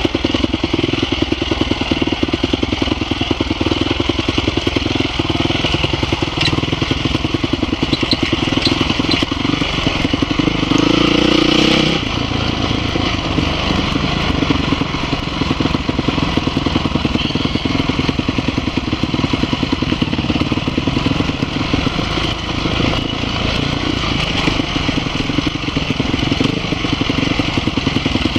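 Off-road motorcycle engine running steadily under way, heard from on the bike, its rapid firing pulses continuous. About ten seconds in it pulls harder and louder for a moment, then drops back abruptly.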